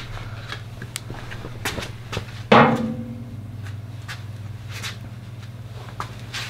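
Light handling clicks and taps, then one sharp metallic clank with a short ring about two and a half seconds in, as metal strikes the steel loader bucket. A steady low hum runs underneath.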